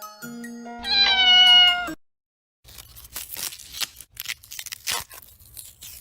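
A cat meows once, loud and drawn-out, over the last notes of a tinkly mallet jingle. After a brief silence, irregular crunchy chewing sounds begin.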